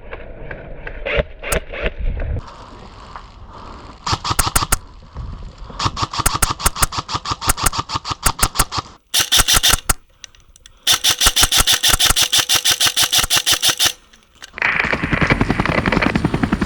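Airsoft electric guns firing on full auto: about four bursts of rapid, evenly spaced clicking shots, the longest about three seconds. A rough rustling noise follows near the end.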